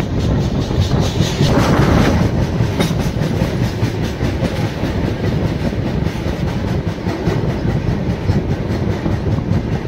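Passenger train running along the track, heard from aboard the coach: a steady rumble of the wheels with a rapid, even clickety-clack over the rail joints.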